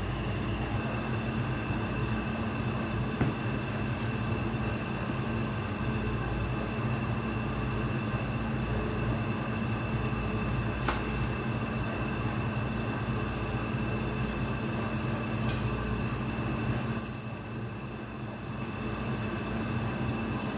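AC TIG welding arc on an aluminium cylinder block, a steady buzz that dips briefly near the end.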